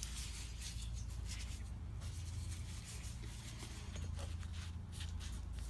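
Quiet handling of small parts on a workbench: gloved hands pressing and turning a fuel sump kit's black body with its freshly oiled O-ring, giving faint rubs and a few light taps over a steady low hum.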